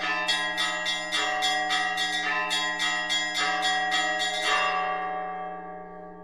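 Bells struck in a quick peal, about three or four strikes a second, over a steady low drone. The strikes stop about four and a half seconds in and the bells ring on, fading.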